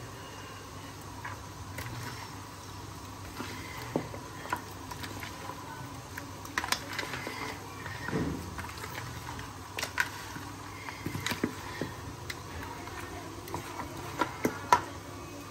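A spoon knocking and scraping against a plastic bowl as raw chicken pieces are stirred through a thick yogurt spice marinade: scattered irregular clicks, the loudest near the end, with a dull low bump about halfway through.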